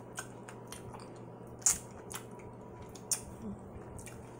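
A person chewing baked chicken with wet, squishy mouth sounds and a few sharp lip smacks, the loudest about a second and a half in, as she eats with her fingers.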